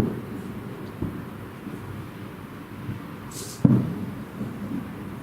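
Distant fireworks bursting: a few dull booms, each with a rumbling tail, the loudest about three and a half seconds in.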